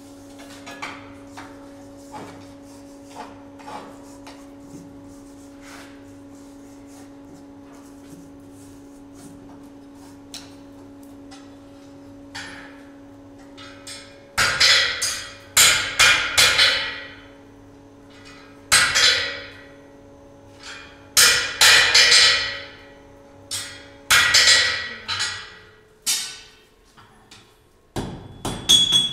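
Blacksmith's hammer striking hot steel on an anvil: heavy blows in short runs, each ringing briefly, starting about halfway through. Before that there are only light metallic taps over a steady hum.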